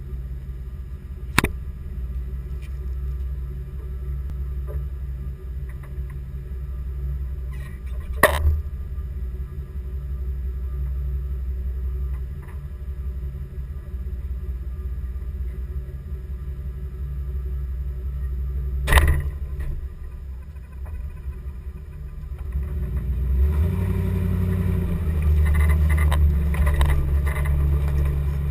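Chevrolet K5 Blazer running at low speed off road, a steady low rumble, with three sharp knocks spread through it. About 23 seconds in it grows louder and fuller, as under more throttle.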